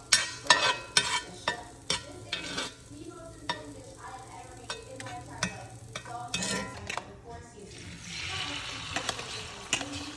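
Cooking in a pan: a utensil knocking and scraping repeatedly, with sharp clacks, then a burst of sizzling about eight seconds in.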